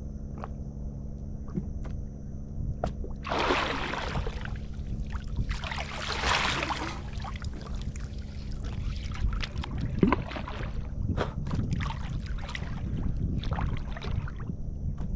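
Small fishing boat's engine running with a steady low hum, with two loud rushes of splashing water about three and six seconds in and scattered knocks.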